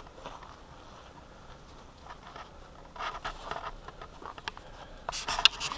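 Two cats wrestling on gravel, their paws scuffing and scratching and the pebbles rattling. It starts as scattered scuffs about three seconds in and becomes a dense patter of scratching and clicks near the end.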